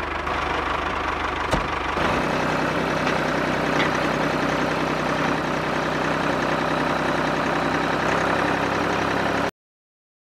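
Small electric motor and gear drive of a homemade toy tractor running steadily as it drives, with a shift in its low hum about two seconds in. The sound cuts off abruptly near the end.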